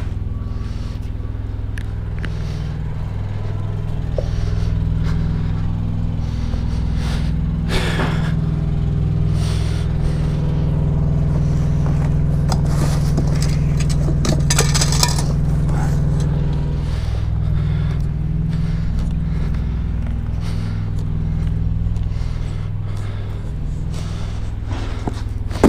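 Diesel truck engine idling steadily. A scrape about eight seconds in and a metallic clatter around fifteen seconds in sit on top of it.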